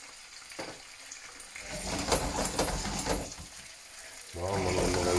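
Mackerel fillets frying in olive oil with a splash of wine just added, sizzling and crackling, loudest around the middle. A drawn-out voice sound comes near the end.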